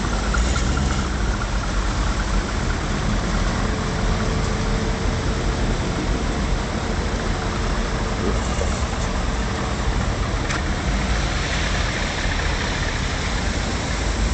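A queue of Corvettes creeping forward, their V8 engines idling in a steady low drone.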